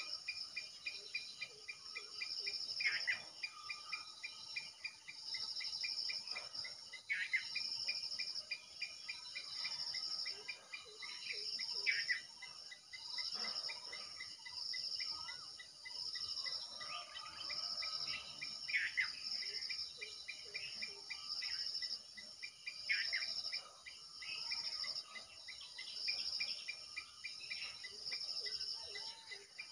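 Crickets chirping in steady, repeated high trills about once a second, with a bird calling briefly every few seconds.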